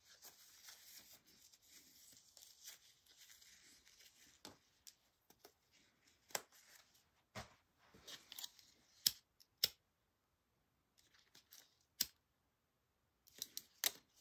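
Faint handling and rustling of zipper tape, followed by a few sharp clicks, the loudest a pair a little past the middle, with two short dead-silent gaps where the sound drops out.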